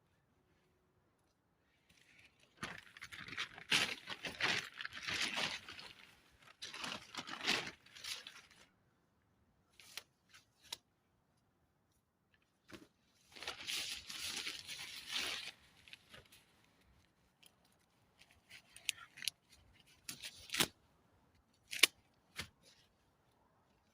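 Tent fabric rustling and crinkling as a small shelter is handled and pulled into place, in two long spells, with a few sharp clicks and taps in between.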